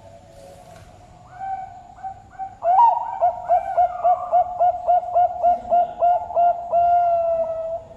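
Zebra dove (Bangkok perkutut) singing: faint cooing at first, then about three seconds in a loud song of a dozen quick, evenly spaced coo notes that ends in one longer drawn-out note.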